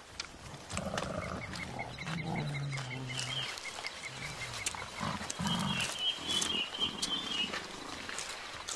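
Mountain gorillas giving low, drawn-out grunting rumbles. A fast chirping and then a warbling bird call run through the background, with scattered rustles and clicks in the vegetation.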